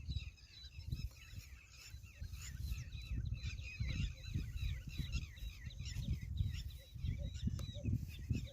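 A dense chorus of many small birds chirping continuously, with an uneven low rumble underneath.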